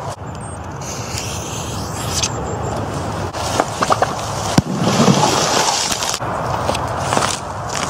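A firecracker exploding on frozen pond ice: a few small clicks, then one sharp bang a little past halfway, followed by a short rush of noise.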